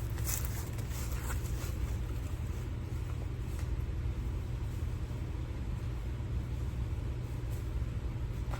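A steady low mechanical rumble, with a few faint rustles or crackles in the first second or so.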